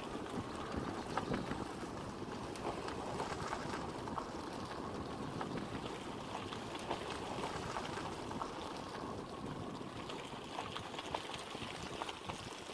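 Steady outdoor background noise: an even low rush with faint scattered ticks and no clear single source.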